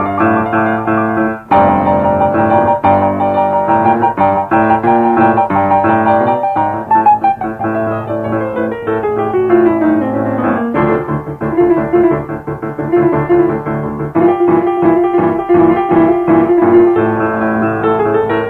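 Piano-like keyboard music with a steady run of notes, and a long falling glide in pitch about halfway through.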